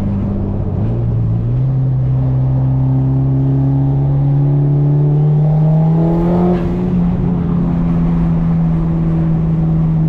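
Mitsubishi Lancer Evolution IX's turbocharged 2.0-litre four-cylinder engine heard from inside the cabin as the car accelerates. Its note climbs steadily over the first several seconds, then holds an even pitch at a cruise.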